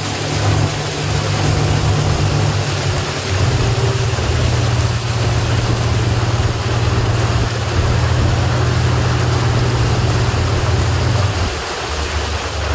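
Abra water taxi's inboard diesel engine running with a steady low drone over a constant hiss. Its note steps down about three seconds in and again near the end as the engine slows.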